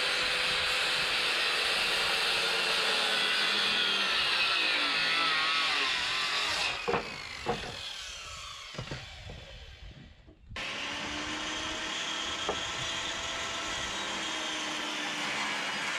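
Handheld circular saw running and cutting through pressure-treated lumber for stair treads, its pitch sliding down as it winds down about six seconds in. Two sharp knocks follow, then the saw runs again from about ten seconds in.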